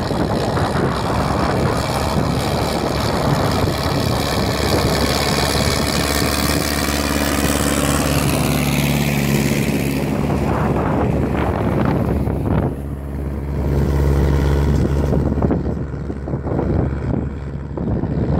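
MTZ-82.1 Belarus tractor's diesel engine running steadily under the load of a KPS-4 field cultivator. A hissy rush over the engine fades out about halfway through.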